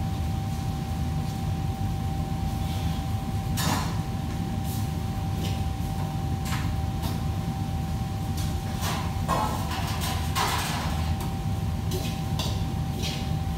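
Steady low hum of kitchen machinery, with a faint steady whine over it, broken by scattered clinks and clatter of pans and utensils on steel counters, the busiest stretch about two-thirds of the way through.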